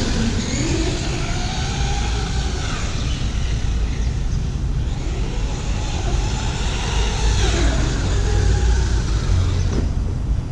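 Remo Hobby Dinosaurs Master 5 RC monster truck's electric motor whining, the pitch rising and falling several times as the throttle is worked, over a steady low rumble.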